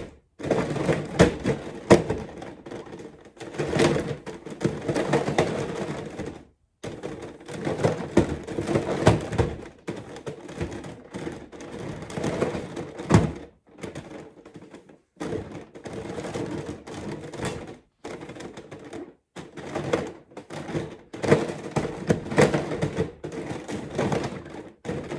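Giant plastic 3x3 Rubik's cube turned by hand: its layers clack and rattle as they rotate and click into place, in runs of quick turns broken by short silent gaps.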